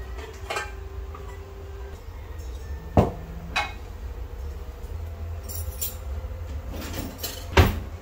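Washed dishes being lifted off a drying mat and put away: a pan and mugs clinking and knocking together in several separate strikes, two of them louder, about three seconds in and near the end. A steady low hum runs underneath.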